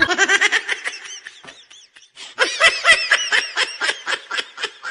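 Quick, even ha-ha-ha laughter, about six pulses a second. It dies away a little under two seconds in, then starts again louder just after two seconds and runs on.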